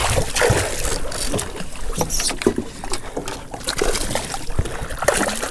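Irregular splashing and slapping of seawater against the hull of a small fishing boat, close to the side where a hooked fish is being brought in.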